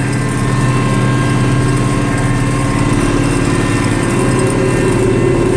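International Harvester 1586 tractor's six-cylinder turbo diesel running steadily under load while pulling a chisel plow, heard from inside the cab.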